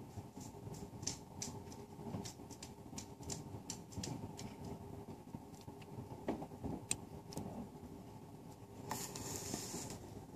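Irregular small clicks and ticks over a steady low room hum, with a brief rustle near the end as the phone is moved.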